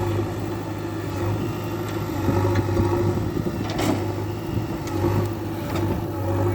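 Steady engine hum with a few sharp knocks, about four and five seconds in.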